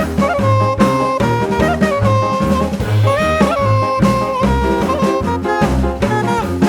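Background music: an upbeat jazz or swing tune with a saxophone or brass lead holding melodic notes over a steady drum-kit beat.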